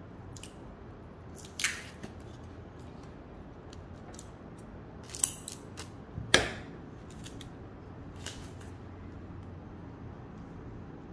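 Tape being pulled off a roll and cut with scissors: a handful of short rasping snips and tears, a cluster of them around five to six seconds in, the loudest at about six seconds.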